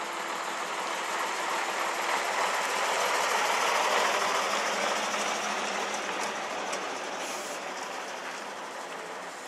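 Engine of a vintage half-cab double-decker bus pulling past close by, getting louder to a peak about four seconds in, then fading as it moves away.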